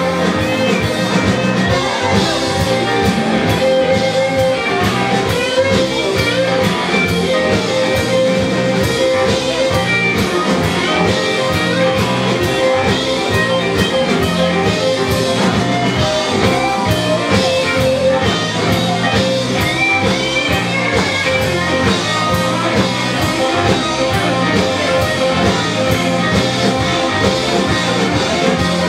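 Live blues band playing, with electric guitar over a steady drum-kit beat.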